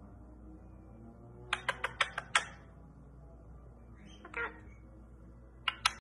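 Indian ringneck parakeet making a quick run of about six sharp clicks, then one short soft call about halfway through and two more clicks near the end.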